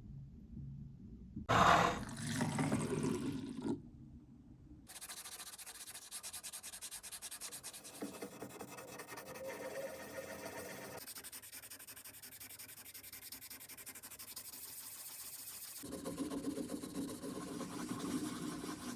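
Rapid, continuous rubbing strokes on a small die-cast scale model car, a scratchy abrasive sound that changes abruptly several times. It opens with a short, louder noisy burst about two seconds in.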